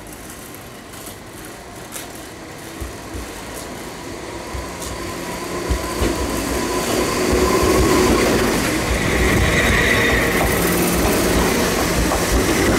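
Enoshima Electric Railway (Enoden) electric train creeping round a tight curve through houses and passing close by, growing louder as it nears. There are a few sharp wheel clicks over the rail joints, then a thin wheel squeal midway, rising to a higher squeal as the cars go past.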